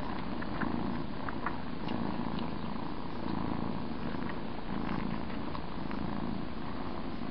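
Cats purring close to the microphone, a low rumble that swells and fades about once a second with each breath, with a few faint short squeaks over it.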